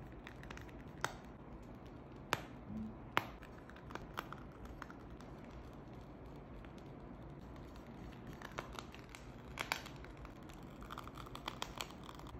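Plastic piping bag crinkling as it is squeezed to pipe whipped cream, with a few sharp clicks and a run of small crackles near the end, over faint steady background noise.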